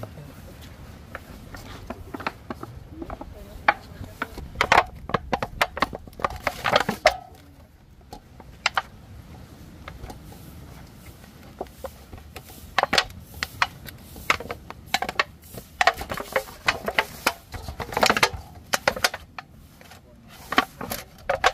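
Irregular sharp knocks and taps of food preparation by hand, in two busy spells with a quieter stretch between.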